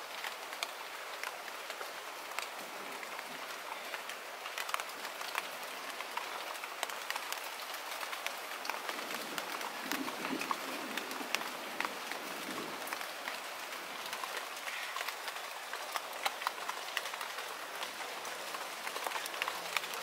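Light rain falling on a small pond and its water plants: a steady patter with many separate drops ticking on the water and leaves.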